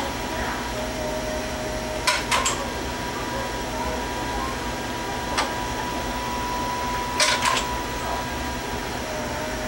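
Lionel 164 log loader's motor running steadily as its chain conveyor lifts logs, with short rattles of logs clattering about two seconds in and again about seven seconds in.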